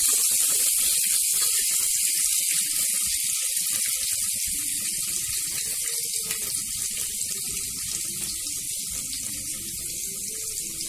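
Sliced onions sizzling in hot oil in a pressure cooker: a steady hiss that slowly grows quieter.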